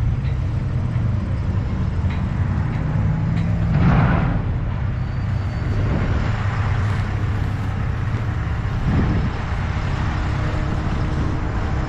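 Boom crane's engine running steadily under load, with a brief louder surge about four seconds in.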